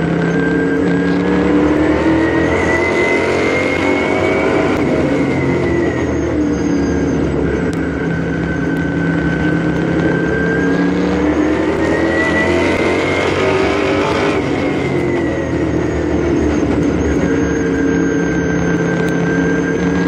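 LMS stock car's V8 engine at speed, heard from a camera on its hood. The revs climb and fall back twice as the car laps the track.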